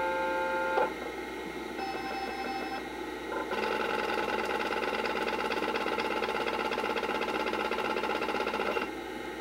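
Replacement hard drive in a Total Peripherals external SCSI enclosure starting up and working toward operating speed, a drive with a very unusual sound. A whine of several steady tones cuts off with a click about a second in. From about three and a half seconds it gives a louder, rapid ticking buzz with several tones, which drops away just before the end.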